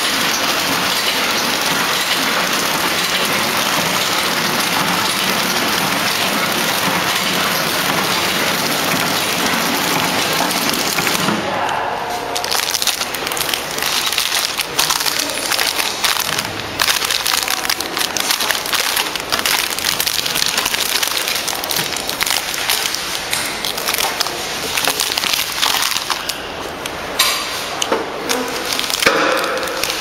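Horizontal pillow-type flow-wrapping machine running with a steady noisy hiss. From about twelve seconds in, uneven crinkling and crackling of the clear plastic film on the wrapped switch panels as they are pressed and handled.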